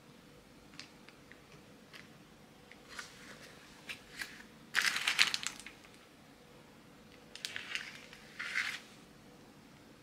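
Knife slicing through a baked Basque cheesecake on crumpled parchment paper: the paper crinkles and rustles, loudest about five seconds in and again around eight seconds, with scattered light clicks and scrapes between.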